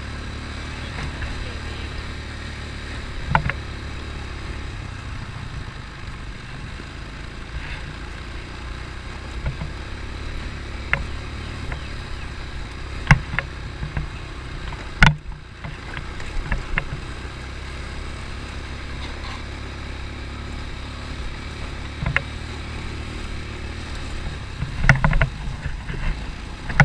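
An ATV (quad bike) running with a steady low engine and wind rumble, with occasional sharp knocks and rattles from the machine jolting over rough ground.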